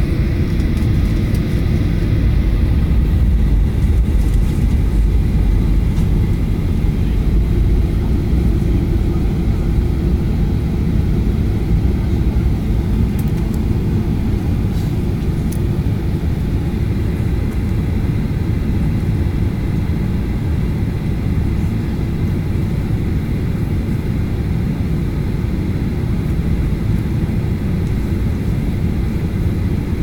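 Jet airliner's engines heard from inside the cabin while taxiing: a steady low rumble with faint steady whining tones above it.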